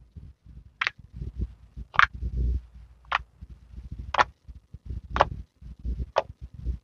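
Hands kneading and pressing a thick glittery slime: a soft, low squelching with six sharp pops or clicks about a second apart, as air pockets in the slime burst under the fingers.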